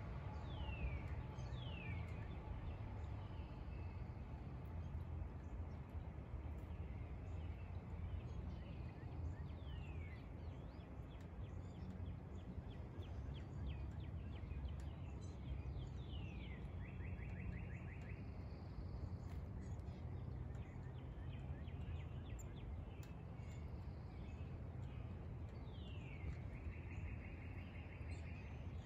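A black-capped chickadee calls now and then: short whistled notes that slide downward in pitch, and twice a buzzy run of rapid notes like the 'dee-dee' of its chick-a-dee call. A steady low rumble of outdoor background noise runs underneath.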